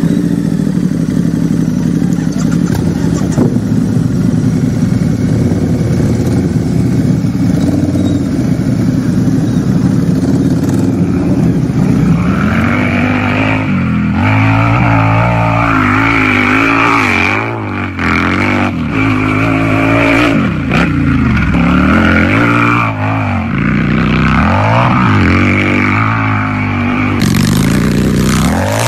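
Harley-Davidson motorcycle's V-twin engine idling steadily, then revved up and down again and again from about twelve seconds in.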